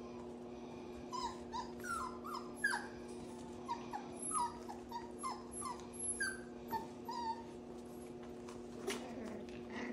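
Pomsky puppies squealing and whimpering in a rapid string of short, high-pitched yelps, from about a second in until about seven seconds, during rough play-fighting with their mother. A steady low hum runs underneath.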